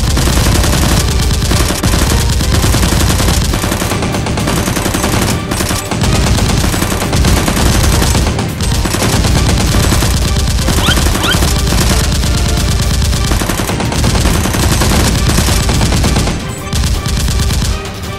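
Dubbed-in automatic gunfire sound effects: rapid, almost unbroken bursts of machine-gun fire, easing off near the end.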